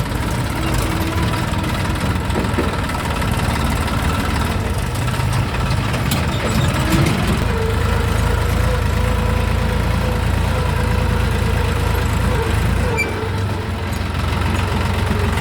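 Diesel tractor engine running steadily under way, a steady higher hum joining the low drone about halfway through.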